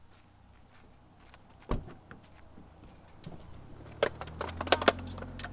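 Handling noises around a car as dogs are let out: a single thump about two seconds in, then a quick run of sharp clicks and knocks near the end over a low steady hum.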